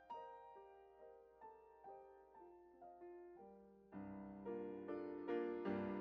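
Quiet background piano music: single notes about two a second, each fading away, then fuller, louder chords with a low bass note joining about four seconds in.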